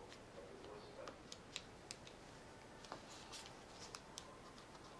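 Faint crisp crinkles and ticks of origami paper being folded and creased by hand: a scattering of short, sharp clicks at irregular moments.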